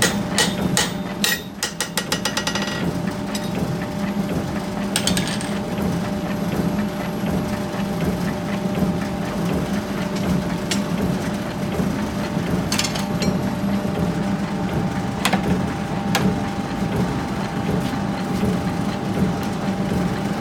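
Forge workshop machinery running with a steady hum, and a fast, even run of power-hammer blows, about ten a second, in the first few seconds. A few single metallic knocks follow later.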